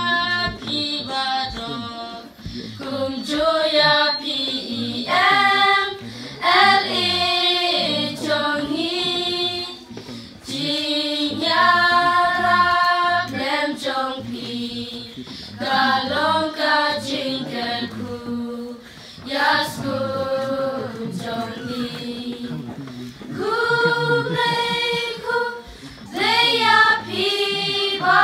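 A children's choir singing a song together in phrases of held notes, with short breaks between phrases.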